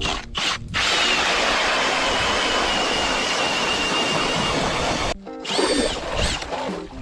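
Power ice auger boring through lake ice: a steady grinding whir with a thin motor whine for about four seconds, cutting off suddenly. A few short squeals that rise and fall follow near the end.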